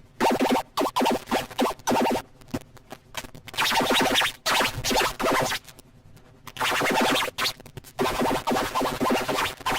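Fisher-Price Laugh & Learn Love to Play Puppy toy's electronic voice and tunes, distorted by stacked audio effects into choppy bursts. The bursts come in four clusters separated by short gaps.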